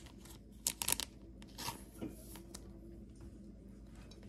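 Faint handling of Pokémon trading cards and a clear plastic card sleeve: a few sharp clicks and short rustles in the first second or so, then soft rubbing as a card is set down on the playmat.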